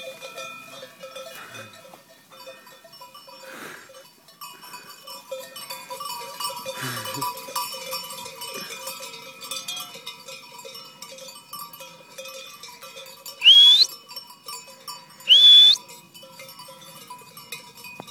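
Bells on a grazing flock of sheep ringing faintly and steadily. Twice near the end, a few seconds apart, a person gives a loud whistle that rises in pitch and then holds, calling the dog back.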